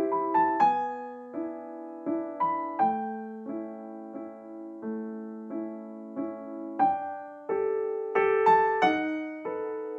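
Background piano music: single notes and chords struck one or two a second, each left to ring and fade.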